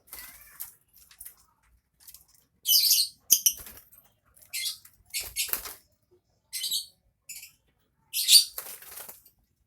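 Lovebird calling in a run of short, shrill, buzzy chattering bursts, about seven of them with brief pauses between, the loudest near the start and near the end: the chattering song that keepers call ngekek.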